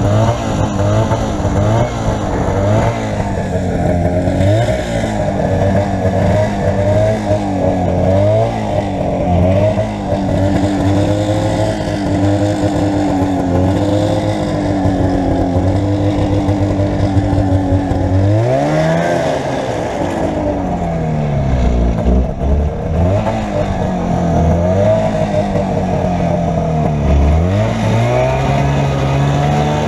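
Arctic Cat Jag 440 Deluxe snowmobile's two-stroke engine running under way, its pitch rising and falling repeatedly with the throttle, with a few sharp climbs in revs.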